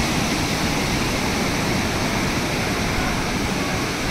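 Sea surf breaking and washing up a sandy beach: a steady rushing noise of waves.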